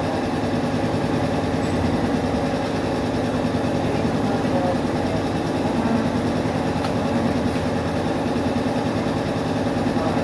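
A nearby engine running steadily at idle: an even, low drone that does not change.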